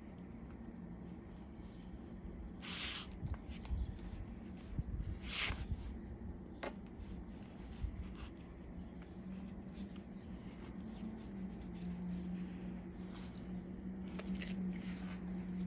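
Thread being drawn through leather as a boot is hand-stitched to its insole: a few short rasps as stitches are pulled tight, with small ticks between. A low steady hum comes in during the second half.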